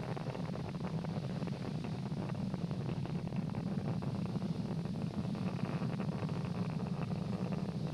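Falcon 9 first stage's nine Merlin engines during ascent: a steady low rumble with faint crackling, building slightly.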